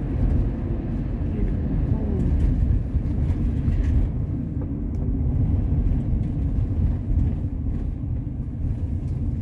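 Steady low rumble of a moving road vehicle's engine and tyres, heard from inside the vehicle as it drives along.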